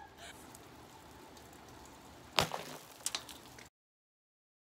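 A hammer strikes a bathroom scale once, a sharp crack about two and a half seconds in, followed by a few smaller clatters of breaking pieces. The sound cuts off suddenly about a second later.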